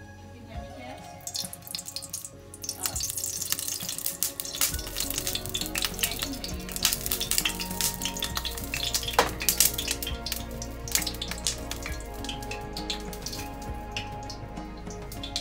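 A hot nonstick frying pan sizzling and crackling as a handheld sprayer wets it, the crackle thickening about a second and a half in. Background music plays under it.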